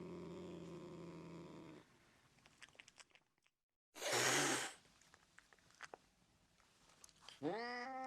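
A domestic cat purring steadily, stopping about two seconds in. After a moment of dead silence comes one short, sharp cat hiss, the loudest sound. Near the end a cat starts a drawn-out meow that rises and falls in pitch.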